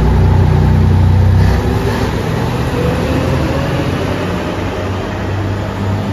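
JR Shikoku limited-express diesel train pulling out of the station, its diesel engines running with a steady low hum. The low hum eases about one and a half seconds in, and a faint rising whine follows as the train gathers speed.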